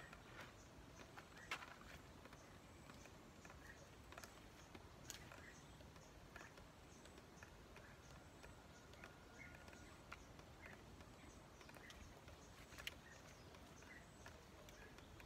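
Near silence: faint outdoor ambience with scattered soft bird chirps and a few sharp clicks, the loudest about thirteen seconds in.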